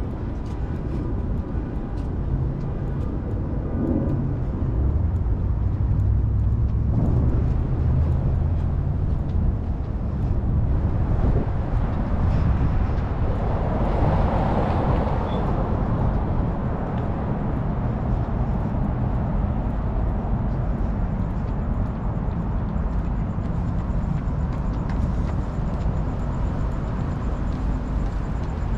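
Steady road traffic along a busy city boulevard, a continuous low rumble of engines and tyres, swelling louder about halfway through.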